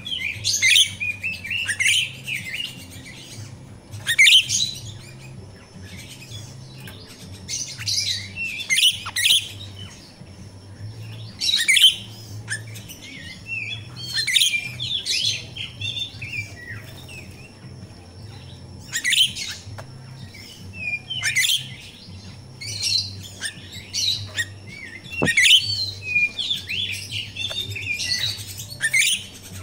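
Grosbeak starling (jalak rio-rio) calling: clusters of short, high, chattering chirps every second or two, over a faint steady low hum.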